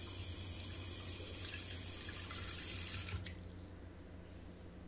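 Tap water running in a steady stream into a porcelain vessel sink whose push-button drain is closed, filling the basin to test the drain for water tightness. About three seconds in the tap is shut off and the stream stops suddenly, leaving a few last drips.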